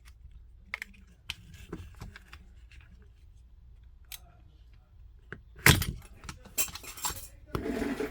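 Scattered small clicks and taps of hand tools and a small plastic device being handled on a bench, then a loud knock a little past halfway, followed by a few seconds of scraping and rattling.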